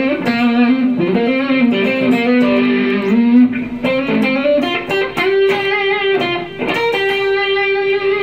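Electric guitar played through a Line 6 POD Farm amp-modelling rig: a blues lead line of single notes with string bends that glide up in pitch, ending on long held notes.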